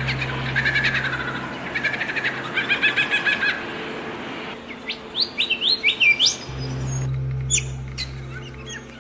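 Songbirds chirping and singing: fast repeated chirps for the first few seconds, then a run of quick rising whistled notes around the middle, and scattered high chirps near the end. A steady low hum lies underneath at the start and again through the last couple of seconds.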